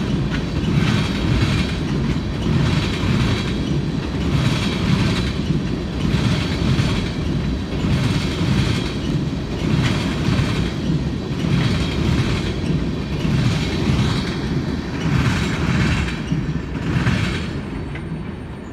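Freight train of flatcars loaded with wind turbine blades rolling past, its wheels clattering over the rail joints in a regular clickety-clack about once a second over a steady low rumble. The sound eases off a little near the end.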